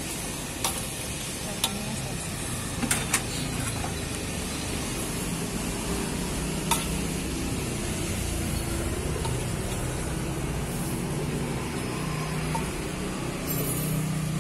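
Metal ladle stirring and scraping in a metal wok of simmering, sizzling seblak soup, with a few sharp clinks of the ladle against the wok in the first seven seconds, over a steady low rumble.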